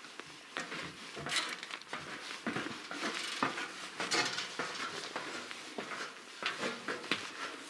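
Footsteps going down a wooden staircase: a run of irregular knocks and light clatters, about one or two a second.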